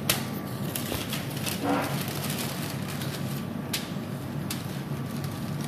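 Steady low background hum, with a few light clicks and taps from handling on the work surface, two of them about two thirds of the way through.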